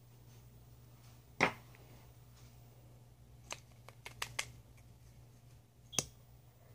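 Sharp plastic clicks and taps from handling a mascara-style lash tube and its wand as it is opened. There is one loud click about a second and a half in, a quick run of four or five small clicks around the middle, and another sharp click near the end.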